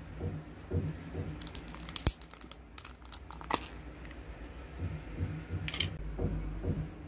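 Thin plastic lid being peeled off a small plastic condiment cup, crinkling and crackling in quick clusters from about one and a half to three and a half seconds in, with one more short crackle near six seconds. A soft low beat runs underneath.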